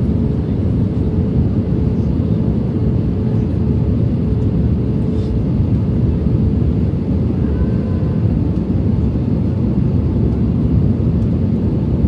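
Airbus A321 cabin noise: a steady low roar of the jet engines and airflow, with a faint steady hum above it.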